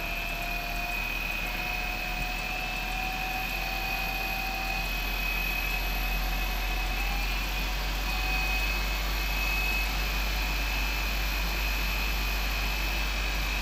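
Unloaded three-phase induction motor, fed by a Siemens MicroMaster 440 variable-frequency drive, running up from half speed toward about 48 Hz. It gives a steady electrical whine with a high inverter tone and a lower tone that climbs slightly in pitch over the first few seconds, then holds.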